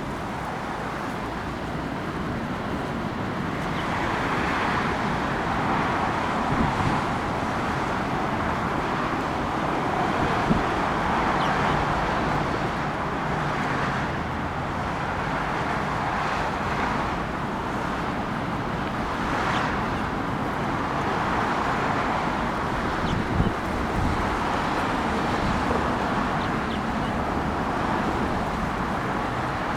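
Steady road traffic noise, with cars passing one after another in swells every couple of seconds and a few light knocks.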